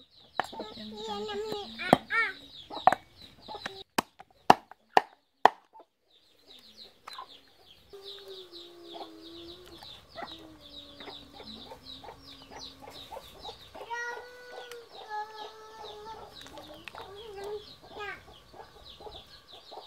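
Chickens clucking, with a run of sharp knocks in the first five seconds.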